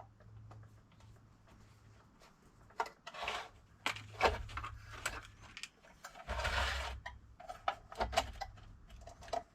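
Small clicks, knocks and scrapes of an electric motor's fan casing being handled and shifted to line up its screw holes, with a longer scrape about six seconds in, over a faint steady low hum.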